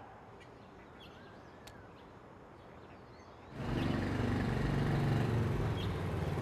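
Quiet outdoor ambience with a few bird chirps. About three and a half seconds in, a motorbike engine comes in suddenly and keeps running at a low, steady pitch.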